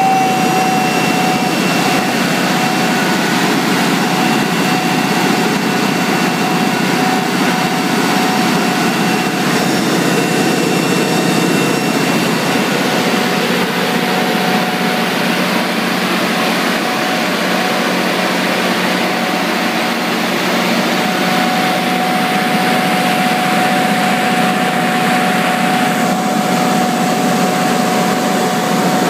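Kohler 100 kW diesel generator set running at a steady speed just after starting, its engine noise even throughout with a thin steady whine over it.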